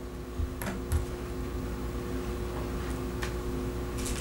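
Quiet room tone with a steady hum and a few faint clicks and light knocks, about half a second and a second in, and again past three seconds.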